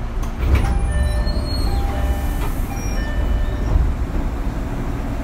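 Cabin sound of a Fujikyu 6000-series electric train (ex-JR 205 series): a steady low rumble of the car's running gear and equipment, a knock about half a second in, and a run of short electronic chime notes at different pitches.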